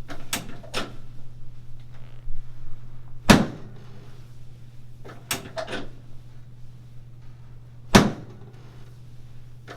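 Several short, sharp knocks and cracks from a chiropractic adjustment on the treatment table, the two loudest landing as thumps about three and eight seconds in, over a steady low hum.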